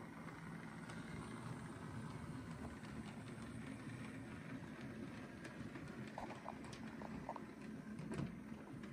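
On30 scale 4-4-0 model steam locomotive running along the track: a steady low rumble from its motor and wheels with faint scattered clicking, and a few brief squeaks about six to seven seconds in.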